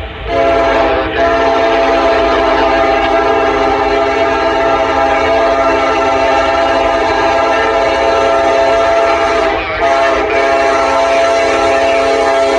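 Diesel freight locomotive's air horn sounding a long, loud multi-note chord, broken briefly about a second in and again near the end, over the low rumble of the passing train.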